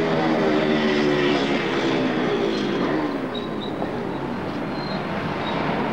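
Street traffic noise: vehicle engines running, with a pitched engine note that rises and falls in the first couple of seconds.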